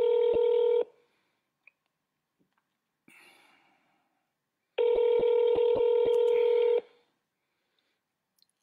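Telephone ringing tone of an unanswered call heard over a phone's speaker: a steady buzzing tone ends just under a second in, and a second ring of about two seconds starts about five seconds in, with a few faint clicks over it.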